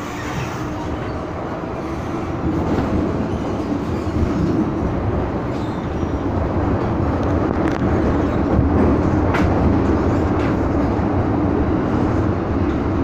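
MTR M-Train, the Tsuen Wan line's Metro-Cammell train, running through a tunnel, heard from inside the car: a steady, loud rumble of wheels on rail that grows louder over the first few seconds, with a few sharp clicks later on.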